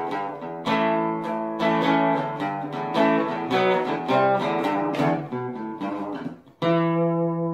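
Background music: guitar strumming chords, ending with a final chord that rings out near the end.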